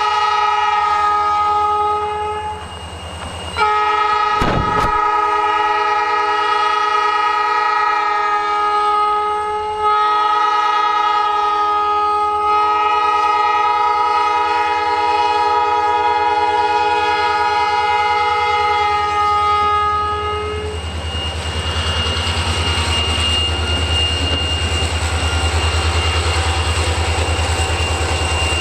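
Multi-chime air horn of ELS 503, an EMD SD40 diesel locomotive, sounding three long blasts, the last held about ten seconds; the uploader hears the horn as a little sick. After the horn stops, about two-thirds of the way in, the freight train runs by with a low rumble and a thin steady high tone.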